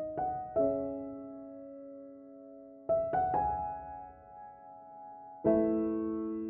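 Background piano music: slow chords struck about every two and a half seconds, each left to ring and fade.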